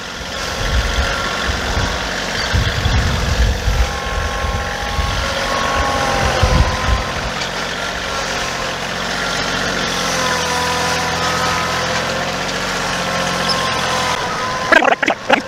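A motor engine running and idling, with uneven low rumbling in the first half that settles into a steadier drone in the second half.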